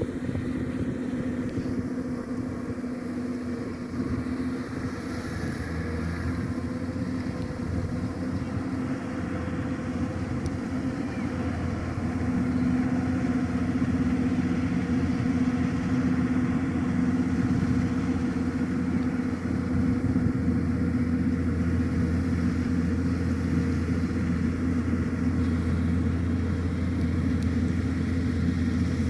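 Kubota DC-105X combine harvester running steadily with a constant engine hum while cutting rice, growing louder about twelve seconds in.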